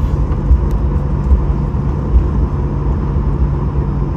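Cabin noise of a Boeing 737-900ER taxiing to the gate after landing: a steady low rumble from its CFM56-7B engines at taxi power and the rolling gear, with a constant hum.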